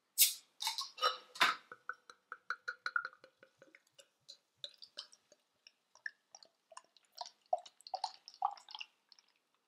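A glass beer bottle being opened with a few sharp clicks. Beer is then poured from it into a pint glass: a quick, even glugging from the bottle neck gives way to irregular gurgles and splashes as the glass fills.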